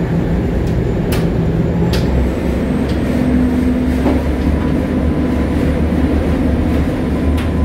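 A passenger ferry's engines running steadily under way, heard inside the cabin as a continuous low rumble with a steady hum, and a few light knocks.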